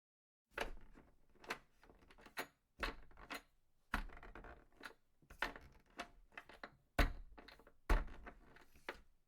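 A series of irregular knocks and clatters, about a dozen, with rattling between them, as of hard objects being handled and set down; the loudest two come near the end.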